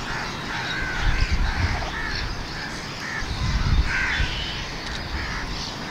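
Birds calling outdoors: many short, repeated calls overlapping throughout, over irregular low rumbles.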